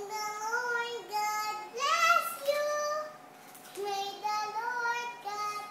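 A young girl singing, a cappella, in long held notes that slide between pitches, with a brief pause about three and a half seconds in.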